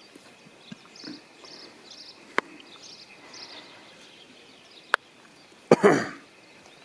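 Faint small-bird chirping with two sharp clicks, then a man's short, loud cough near the end.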